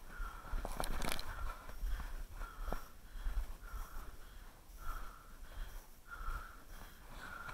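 Footsteps in cold, dry snow, a squeaky crunch about every two-thirds of a second as someone walks steadily, with wind rumbling on the microphone. A few sharp clicks about a second in.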